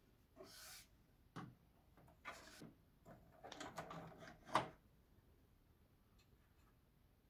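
Handling noises: several short rustles and light knocks over the first few seconds, the loudest knock a little past the middle.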